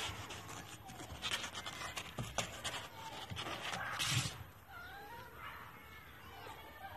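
Kittens scrambling about in a cardboard box: scratchy rustling and clicking of claws on cardboard and blanket, with a louder rustle about four seconds in. Faint, high kitten mews follow in the last couple of seconds.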